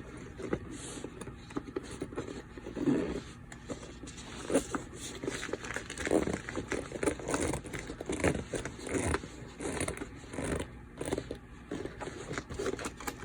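A soft headset carry case being opened and handled: a zipper pulled round and irregular scraping, rustling and small clicks as the case and its contents are moved.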